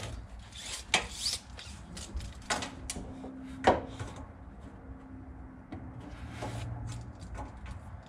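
A steel tape measure and marker are handled against a sheet-metal door pillar, giving three sharp clicks and taps, the loudest near four seconds in, with some rubbing. A low steady hum runs underneath.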